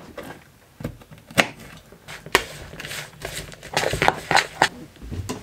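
Kitchen handling sounds as a mixing bowl is worked and tipped on a wooden worktop: a series of sharp knocks and clinks, coming thicker about four seconds in.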